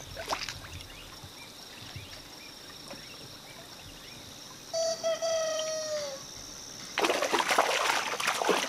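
Muddy water splashing and sloshing as hands grope inside a bamboo fish cover for trapped fish, loudest in a burst over the last couple of seconds. Before that, about five seconds in, a single drawn-out bird call sounds in the background, falling in pitch at its end.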